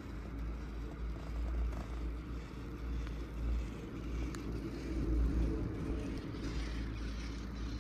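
Steady ride noise on a moving CTEC chairlift: a low wind rumble on the microphone under a broad hiss, with a single faint click about four and a half seconds in.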